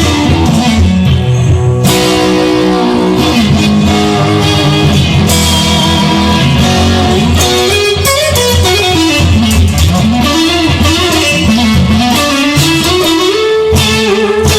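Instrumental section of a guitar song: strummed guitar chords with a band behind them, and from about halfway through a lead line bending up and down in pitch.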